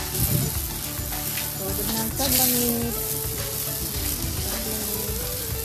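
Water from a garden hose spraying and splashing onto a wet tiled floor: a steady hiss that does not break.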